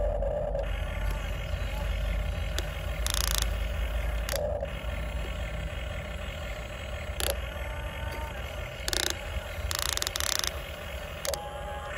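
Huina radio-controlled excavator working: its small electric motors and gearboxes whine and ratchet as the arm and bucket dig and dump soil. There are several short, sharp clacks over a low, steady rumble.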